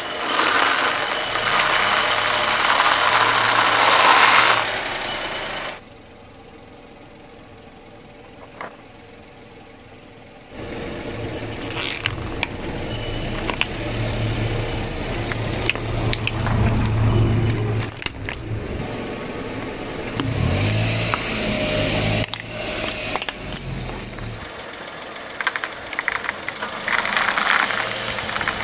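A car's tyre rolling slowly over objects and crushing them, with loud crunching in the first few seconds and sharp cracks and clicks later, over the low steady hum of the car's engine running.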